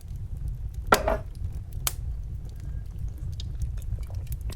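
Wood fire crackling, with sharp pops scattered through it over a steady low rumble; the loudest pop comes about a second in.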